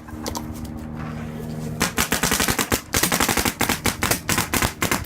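Rapid machine-gun fire, many shots a second, starting about two seconds in and running for about three seconds over a low steady hum.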